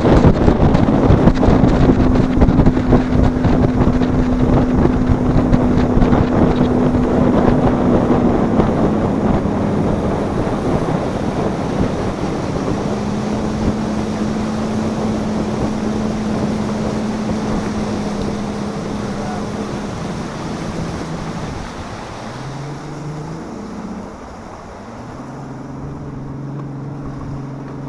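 Boat motor running at speed under heavy wind noise on the microphone. The engine note steps down in pitch a few times, and the motor slows over the last several seconds.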